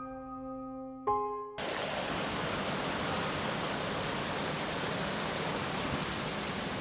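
Soft sustained keyboard music, cut off abruptly about a second and a half in by the steady rush of a waterfall.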